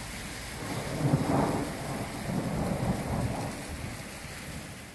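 Thunder rumbling over steady rain. The rumble swells about a second in, rolls on in a second swell, then fades away.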